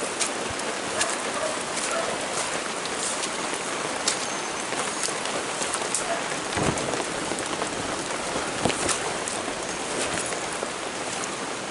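Heavy rain falling steadily, a dense hiss with many sharp close taps of drops striking. There is a single dull thump a little past the middle.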